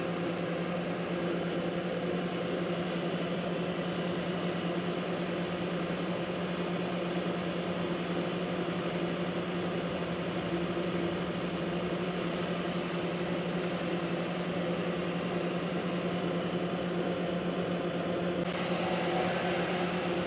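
Steady machine hum over an even rush of air, like a fan running; it holds unchanged throughout.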